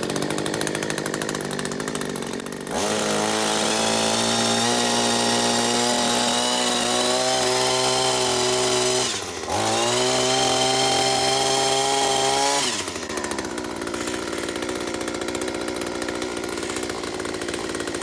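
Echo HC-2020 hedge trimmer's 21.2 cc two-stroke engine idling, then revved twice to a higher steady pitch with a brief dip between, before settling back to idle. The engine is warm and running on the run switch with the choke off.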